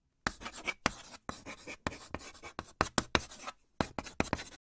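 Chalk scratching on a chalkboard in quick, irregular strokes with short silent gaps between them, the sound of a drawing being sketched. It stops abruptly just before the end.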